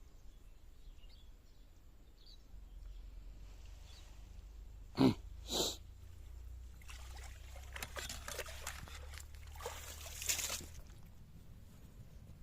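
Water splashing and sloshing over a low steady hum, with two short sharp sounds about five seconds in and a longer stretch of irregular splashing after that.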